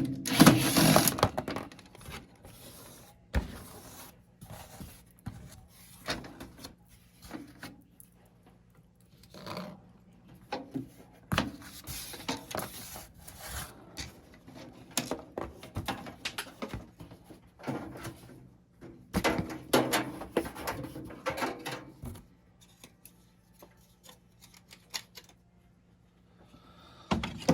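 Screws being taken out of an ice maker's plastic cover panels: scattered clicks, scrapes and rattles of a screwdriver, screws and plastic being handled, in short spells with quiet gaps between.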